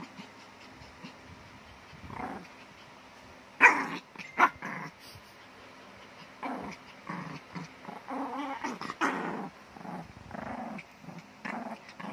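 Small dog growling in play while mouthing a person's hand, in short rumbling bursts, with two sharper, louder bursts about four seconds in.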